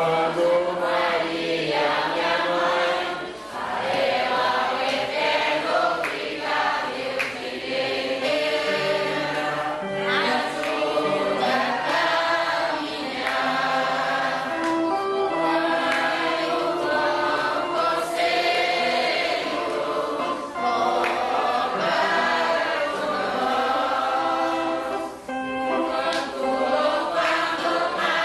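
Many voices singing a religious hymn together, a congregation in unison with long held notes.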